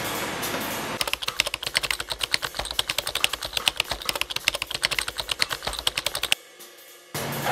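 Rapid keystroke clicks of a typing sound effect, running for about five seconds and stopping abruptly, after a second of street traffic noise.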